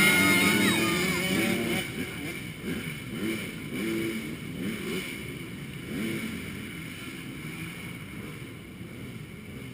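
Motocross motorcycle engines running and revving, their pitch rising and falling, growing steadily fainter as the bikes pull away.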